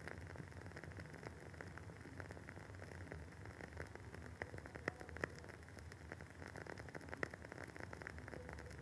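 Wooden wick of a WoodWick candle crackling as it burns: a dense, irregular patter of small pops, with a few sharper snaps in the second half, over a faint steady low hum.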